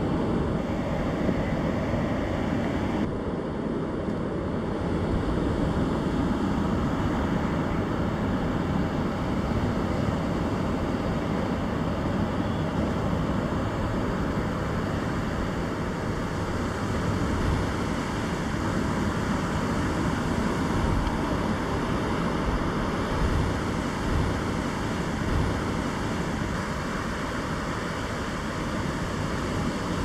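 Ocean surf breaking and washing up on a sandy beach, a steady rushing wash, with wind rumbling on the microphone.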